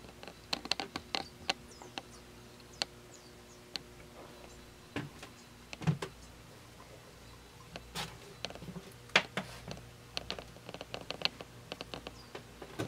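Scattered light clicks and taps with a few duller knocks, over a faint steady hum: handling noise of a handheld camera being moved around a sailboat's cabin.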